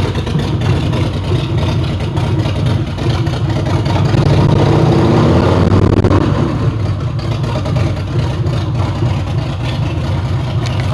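Custom chopper motorcycle engine running, a deep steady exhaust note as the bike pulls away. It revs up about four seconds in and eases off after about six seconds.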